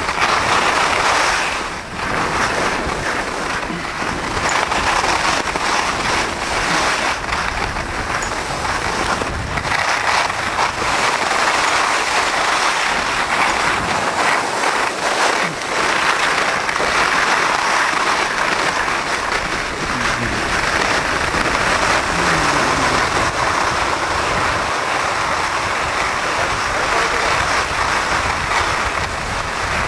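Skis hissing and scraping over snow, mixed with wind rushing across the microphone, during a downhill ski run: a steady loud rush of noise.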